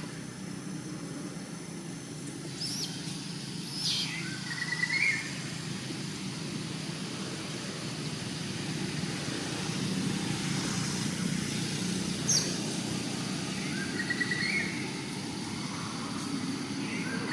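Outdoor ambience: a steady low rumble of distant traffic, with a bird calling twice. Each time it gives sharp downward-sweeping notes followed by a short warbled phrase, once a few seconds in and again about twelve seconds in.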